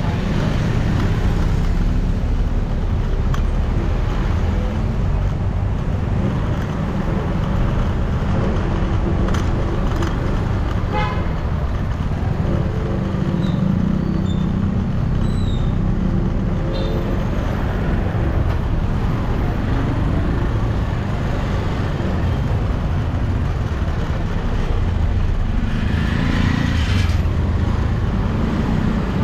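Busy street traffic, with a steady rumble of passing engines. A vehicle horn toots a few times around the middle.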